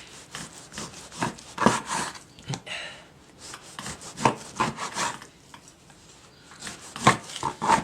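Knife cutting pork on a cutting board: a run of irregular scraping strokes and taps.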